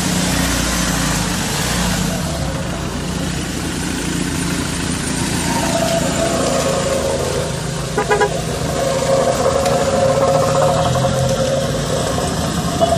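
Vehicles running on a wet, potholed road with a car horn honking. From about halfway in, a horn sounds long and steady, with a quick burst of short toots a little later.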